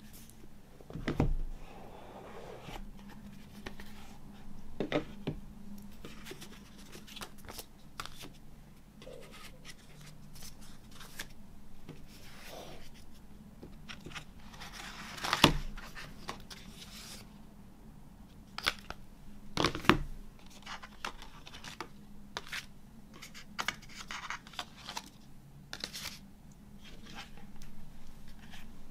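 Cardboard box set and its contents being handled on a wooden table: stiff card sleeves, booklets and box parts slid, lifted and set down, with scattered knocks and paper rustling. The louder knocks come about a second in, about halfway through, and about two-thirds of the way through.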